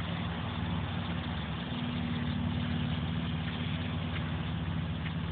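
A motor idling steadily, a low even hum.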